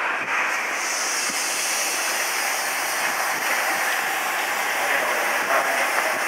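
Steady hiss and hum of a stopped Meitetsu commuter electric train standing at the platform, with a higher air hiss setting in about a second in.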